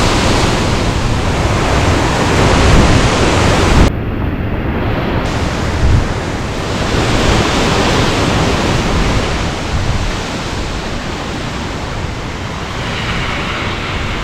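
Hurricane wind and rain making a loud, steady rushing noise, with gusts buffeting the microphone.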